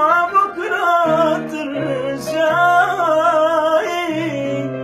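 Music: a man singing a long, wavering Arabic vocal line over sustained instrumental accompaniment. The voice stops about four seconds in and the accompaniment carries on.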